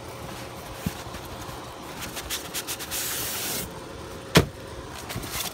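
Cardboard box and packaging being handled: light rustling and clicks, a scraping slide about three seconds in, then one sharp knock a second later.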